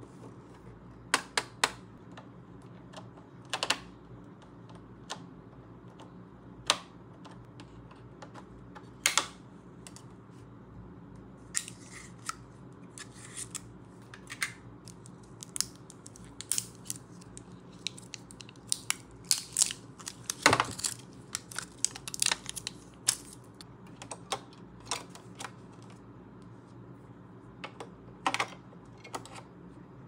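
Small hard plastic toy pieces clicking and tapping as a toy refrigerator set and its toy food are handled. The clicks are sharp and come irregularly, busiest and loudest about two-thirds of the way through, over a faint steady hum.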